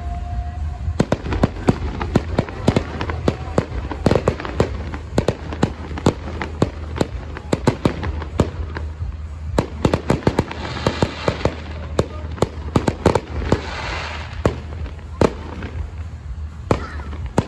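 Fireworks display: aerial shells bursting in rapid succession, many sharp bangs a second, with two spells of hissing crackle near the middle.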